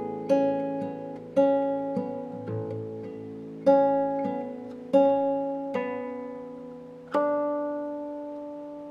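Solo nylon-string classical guitar (violão) playing slow single notes over sustained bass in the closing bars of the piece. The notes come further and further apart, and a last one about seven seconds in is left ringing and fading away.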